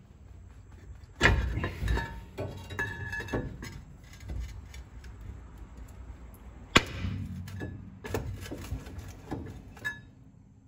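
Sharp metallic clanks and knocks of steel tools working at a rust-seized rear brake rotor to break it loose from the hub. A hard strike comes about a second in with clattering and ringing after it, and the loudest strike comes about two-thirds through, followed by more scattered clanks.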